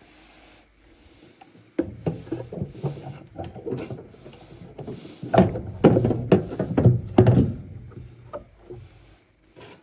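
A run of irregular knocks and clatter from metal parts and tools being handled during furnace work. It starts about two seconds in, is loudest between about five and seven and a half seconds, then dies away.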